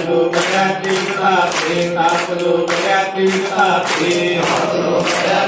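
A group of men chanting a devotional mantra in unison, with long held notes that rise and fall in pitch, over a regular beat of sharp strikes.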